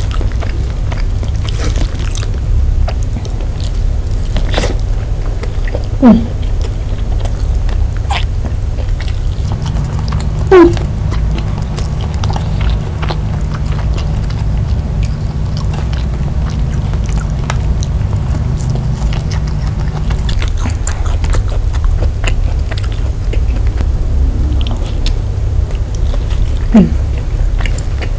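Close-miked chewing of nasi padang, rice with minced meat and vegetables eaten by hand: soft wet mouth sounds and many small clicks, with three louder short mouth sounds spread through, over a steady low hum.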